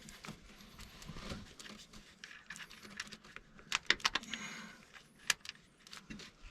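Small metallic clicks, taps and light rattles of a bolt being worked by hand into the shift cover of a UTV transmission, with a quick cluster of sharp clicks about four seconds in.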